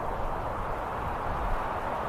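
Outdoor crowd noise: a steady wash of many people walking and talking together, with an uneven low rumble underneath.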